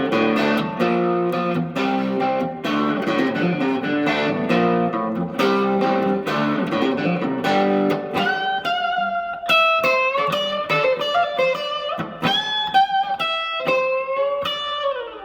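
Reverend Eastsider S electric guitar on its middle single-coil pickup, played through an amp with a little more gain: a fast run of notes, then bent lead notes with vibrato, ending on a long held note that fades out.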